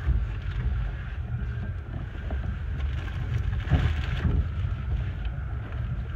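Rumble and rattle of a 15-inch gauge railway carriage rolling along the track, heard from inside its rear compartment, with wind buffeting the microphone. A few sharp knocks come about four seconds in.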